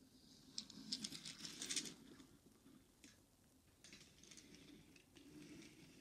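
Faint clicking and rustling from a hand moving a small toy car. There is a dense run of light clicks in the first two seconds, then a few scattered ticks.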